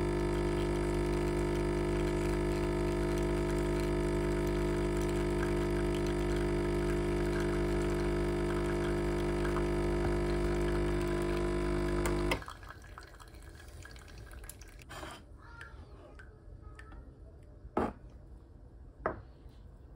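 Espresso machine's pump buzzing steadily while a shot pours through a bottomless portafilter, cutting off abruptly about twelve seconds in. Two short knocks follow near the end.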